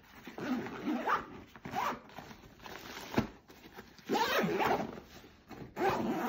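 Zipper on a Goruck GR2 backpack being run shut around the front compartment in several long pulls. A single short knock comes about three seconds in.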